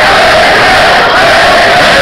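Rock concert crowd cheering and yelling, recorded from within the crowd on an overloaded camera microphone, so that it comes through as one steady, distorted wall of noise.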